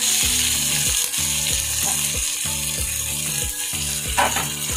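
Chopped onions hitting hot oil and sizzling. A steady frying hiss swells up as they go in and keeps going.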